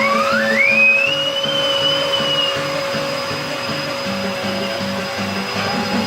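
Vacuum cleaner running with a steady whine, under background music with a repeating pattern of short notes. In the first two seconds a tone rises steeply in pitch, holds, then fades.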